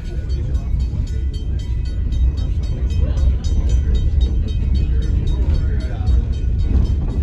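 L&PS Railway Car 14, a restored passenger rail car, heard from on board while it rides the track. There is a steady low rumble with rapid rattling and clicking from the wheels and car body.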